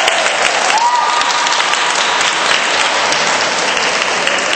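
Audience applauding steadily, a dense run of hand claps.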